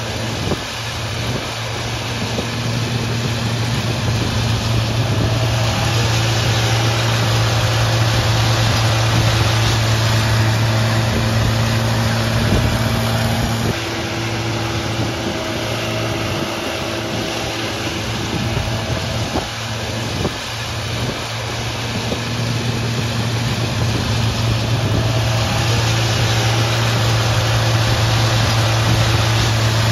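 Wacker Neuson ride-on power trowel running steadily as its spinning blades float a fresh concrete slab. The engine keeps an even hum, easing off slightly a couple of times around the middle.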